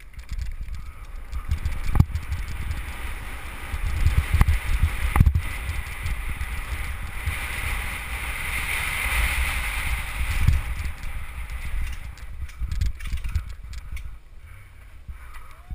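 Downhill mountain bike ridden fast over a rough dirt course, heard from a helmet-mounted camera: steady wind rush and buffeting on the microphone with tyres rolling over dirt and grass, and sharp knocks from the bike hitting bumps about 2 and 5 seconds in. The wind hiss grows louder for a stretch about halfway through.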